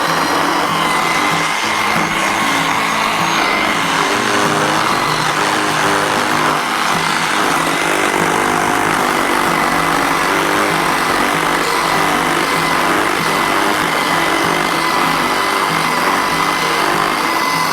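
Bauer 20-volt cordless electric chainsaw running steadily with a high whine, under background music.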